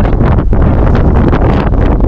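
Wind buffeting the microphone: a loud, continuous low rumble with rapid, irregular crackling gusts.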